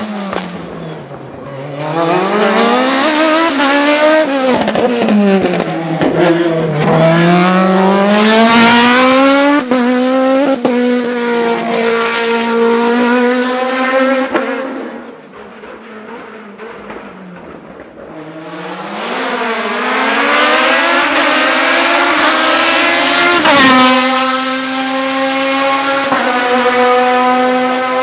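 Osella PA2000 hillclimb prototype's 2-litre Honda four-cylinder engine at racing revs: the pitch falls as it slows, then climbs hard through the gears with a sharp drop at each upshift. It fades about halfway and a second loud pass follows, again rising through the gears.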